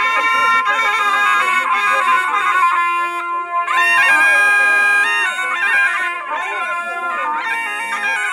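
Zurla (curle), a loud double-reed folk shawm, playing a slow nibet tune. The melody moves with quick ornaments over a steady held drone note.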